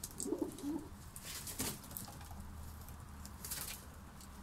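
Domestic pigeons cooing softly in a loft, with a few short scuffs or flutters.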